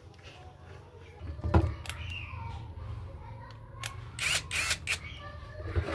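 Clicks and knocks of hard objects being handled. There is one loud knock about a second and a half in and a quick cluster of sharp clicks and scrapes near the end, with faint voices in the background.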